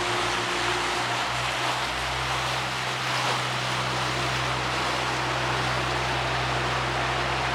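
Pusher tug's diesel engine running steadily, a low drone under a broad, even rush of water wash and wind.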